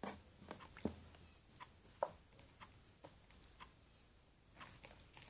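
Faint, scattered soft clicks and squishes of soapy slime being rubbed by hand and stirred with a plastic spoon in a plastic bowl.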